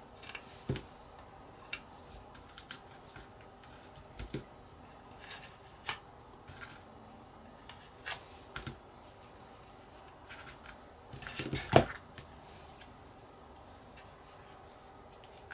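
Masking tape being peeled off a painted plastic model body, heard as scattered small clicks and ticks of fingers and tweezers on the plastic. A louder cluster of knocks comes toward the end.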